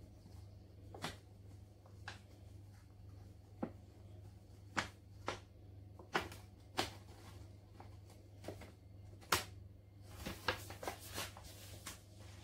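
Flour bag crinkling and tapping as flour is shaken out of it into a stainless steel mixing bowl: faint, irregular sharp clicks and rustles, with a quick run of crinkles near the end as the bag is lowered.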